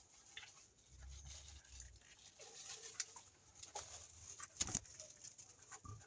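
Faint garden ambience: scattered light clicks and ticks, the sharpest a little before five seconds in, with faint bird calls in the distance.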